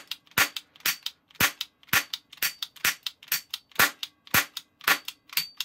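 Die-cast metal toy cap pistol firing a 12-shot ring cap in quick succession, about two sharp cracks a second. The loud cap pops are mixed with weaker snaps where some caps misfire.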